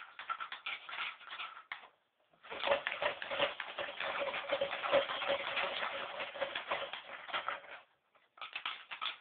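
Baby vocalizing in drawn-out, crackly, steadily pitched noises: a short one, a louder one of about five seconds after a brief pause, and a short burst near the end.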